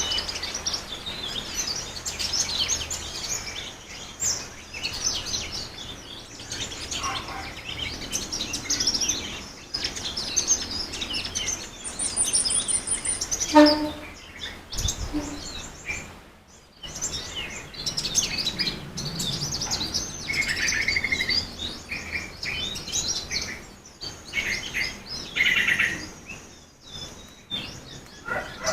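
Many small birds chirping and singing at once, short overlapping calls and trills, with a high steady buzzing trill about twelve seconds in.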